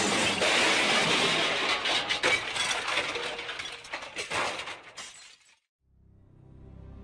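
Shattering glass: a dense crash of breaking glass with many small crackles and clinks, fading steadily and cutting off about five seconds in. Soft, slow music fades in near the end.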